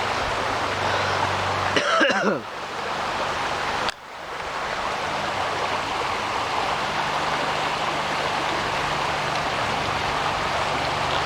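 Creek water rushing steadily over rocks, with a brief voice about two seconds in.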